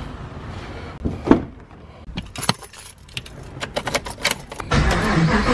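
A bunch of car keys jangling and clicking as they are handled, then near the end a Chevrolet Camaro's V8 engine starts and keeps running.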